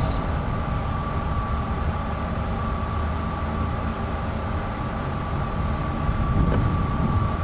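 Grade-crossing warning bell ringing as one steady high tone over a low rumble, which swells a little near the end as the freight train approaches.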